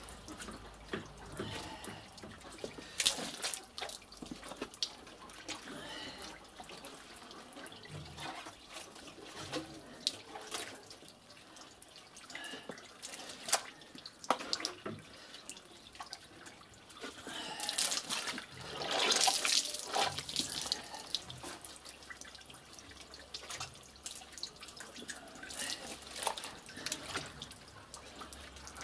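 Wet paper pulp made from soaked cardboard and cement sacks, scooped by hand out of a concrete mixer drum and dropped into a briquette press mould: irregular squelches, splats and dripping water, busiest about two-thirds of the way through.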